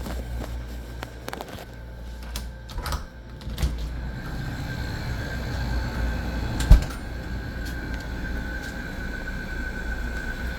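Friedrich 10,000 BTU window air conditioner running with a steady low hum, a thin steady whine coming in about four seconds in. Several light clicks and knocks early on, and one sharp thump a little past the middle, the loudest sound.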